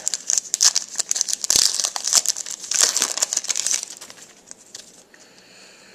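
A trading card pack's wrapper crinkling as it is torn open and handled: a dense run of crackles for about four seconds, then only faint rustling.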